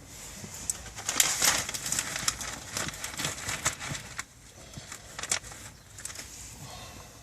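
Irregular rustling and clicking of hands handling wires and tools, loudest in the first few seconds and sparser after.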